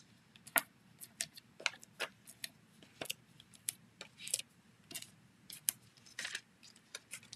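Foam dimensionals being peeled off their backing sheet and pressed onto a cardstock layer: a string of small sharp clicks and short papery peeling rasps, about two or three a second.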